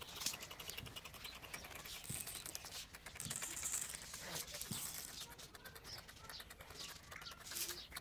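Seed being scattered by hand onto cardboard lids, heard as many faint small clicks and patters, with a few faint bird chirps in the second half.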